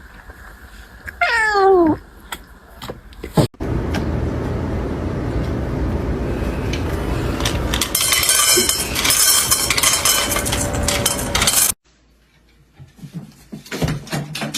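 A cat gives one short meow that falls in pitch, then steady rushing noise with clattering, which cuts off abruptly, followed by faint clicks.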